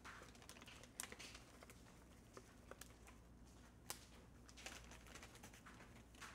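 Faint crinkling of a plastic bag being handled, with a few soft ticks, the sharpest about one second and four seconds in.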